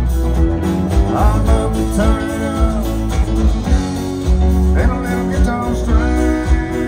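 Live country band playing: fiddle, acoustic and electric guitars and drums over a steady beat, with sliding lead notes on top.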